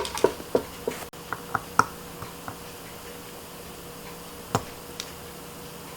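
Small sharp clicks and taps of metal watchmaker's tools working a watch movement while the cannon pinion is being removed. There are several quick clicks in the first two and a half seconds, then two more about half a second apart near the end, over a faint steady hum.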